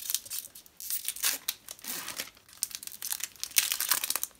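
Foil Pokémon trading card booster pack being torn open by hand, its wrapper crinkling and ripping in a run of quick crackles.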